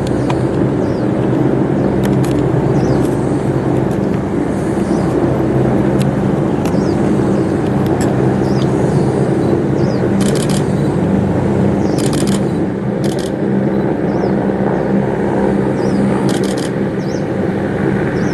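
Airbus H175 twin-turbine helicopter hovering with its rotors and engines running steadily while it winches a casualty up.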